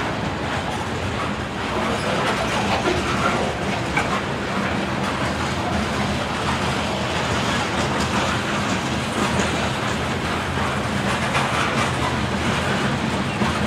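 Freight train's covered hopper cars rolling past at steady speed: a continuous rumble of steel wheels on rail, with clicking and clatter as the wheels cross rail joints.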